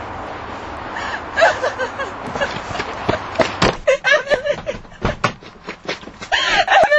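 A person's voice making wordless sounds, with several sharp knocks around the middle. A steady background noise with a low hum fills the first second.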